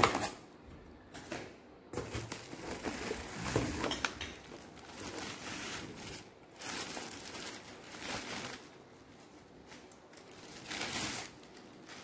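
Bubble wrap and cardboard packaging rustling and crinkling as parts are unpacked from a box, in several irregular bursts of a second or two with short quiet gaps between.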